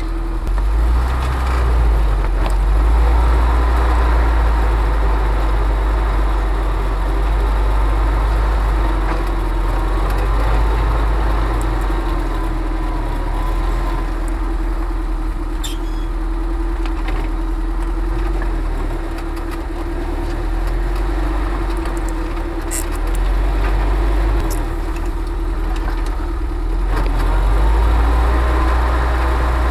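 UAZ off-road vehicle's engine running at low speed as it crawls along a rutted dirt track: a steady drone with a higher whine that wavers in pitch. A few short sharp ticks sound around the middle.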